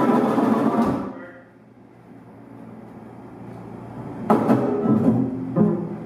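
Small live jazz band of saxophone, trombone, trumpet, guitar and upright bass playing together. About a second in the ensemble drops away to a quiet stretch, then comes back in near the end with a sharp accented hit, the upright bass and guitar to the fore.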